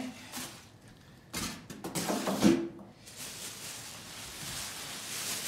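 Unpacking noises: a few knocks and scrapes as a styrofoam packing block is set aside, then soft rustling of plastic wrap around an espresso machine.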